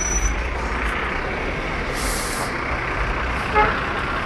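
Street traffic noise, a steady low rumble of passing heavy vehicles, with a short burst of hiss about two seconds in and a brief pitched sound, the loudest moment, near the end.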